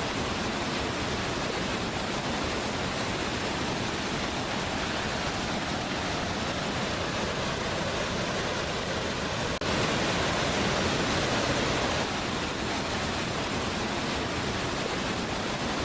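Waterfall: a steady rush of falling water. About ten seconds in it cuts abruptly to a slightly louder stretch.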